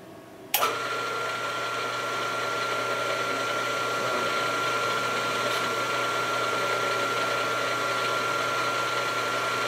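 Small milling machine's spindle motor switched on with a click about half a second in, then running steadily with a constant high whine, turning a coaxial indicator to check that the spindle is centred on the hole.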